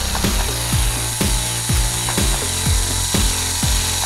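Electronic background music with a steady kick-drum beat, about two beats a second, over a held bass and synth tones.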